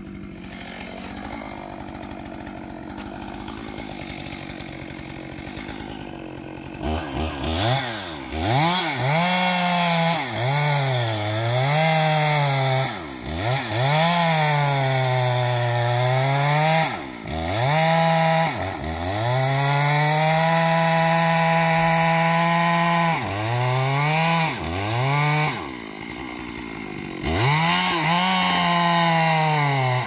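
Chainsaw running quietly, then from about seven seconds in revving hard and cutting into the base of a standing redwood trunk. Its pitch swings up and down with the throttle and load, dropping away briefly several times before climbing again near the end.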